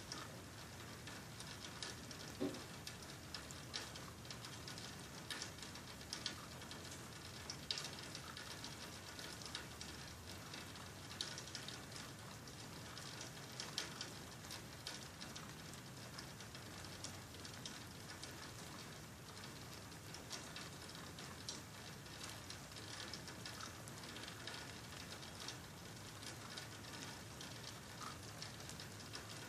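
Faint steady rain, with irregular louder drops ticking on a hard surface.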